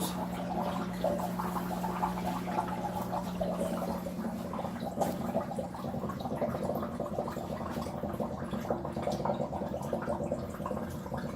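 Water siphoning down into a Polar Aurora canister filter after priming, gurgling and bubbling steadily as the air is pushed out of the canister.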